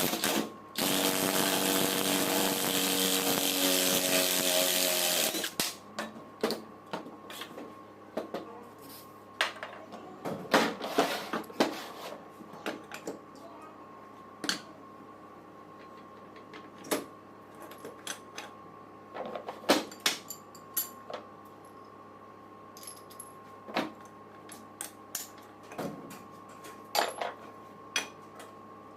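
A power tool runs steadily for about five seconds and then stops. It is followed by scattered clicks and knocks of tools and parts being handled during alternator repair work.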